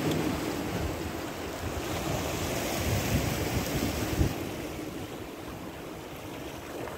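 Wind buffeting the microphone over the wash of sea water, with heavy low gusts that ease off about four seconds in.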